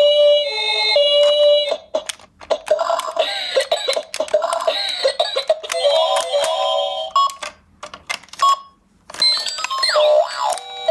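Electronic beeps and short tunes from a battery-powered toy ambulance playset, set off as its buttons are pressed, with plastic clicks from the buttons and parts being handled. The sounds stop briefly a little past the middle, then a beeping tune with a gliding tone starts up.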